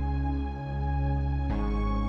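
Background music only: slow, sustained chords with held notes, moving to a new chord about one and a half seconds in.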